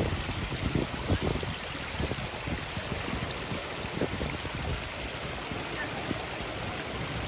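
Steady rush of running water, with low gusts of wind buffeting the microphone near the start.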